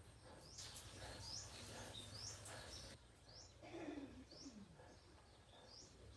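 A small bird chirping over and over, short high chirps about every half second, over a faint low hum. A low falling grunt, typical of a piglet, comes near the middle.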